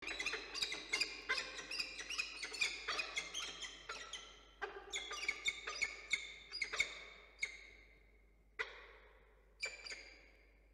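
Peregrine falcons calling: a fast series of short, sharp chipping calls, about three or four a second, that thins out in the last few seconds to single calls a second or more apart.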